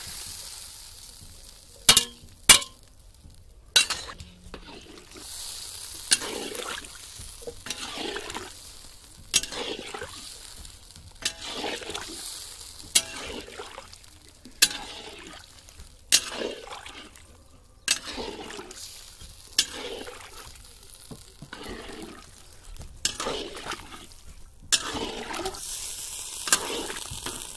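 Metal spatula stirring koftas through thin gravy in an iron kadhai: a regular stroke every second and a half or two, each with a sharp clink of metal on the pan and a slosh of liquid. Two loud metal clinks about two seconds in.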